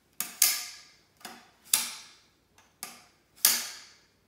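Aluminium underarm crutch having its height adjusted: the lower leg tube is slid and its spring push-button snaps into the holes. About six sharp metallic clicks, each with a short ringing fade.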